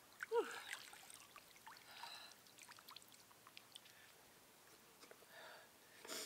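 Water dripping and trickling as a swimmer wades out of cold sea water, with a short falling vocal cry about half a second in and sharp breaths near the end.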